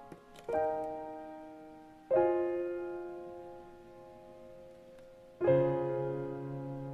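Slow piano music: three chords struck a second or more apart, each ringing out and fading before the next.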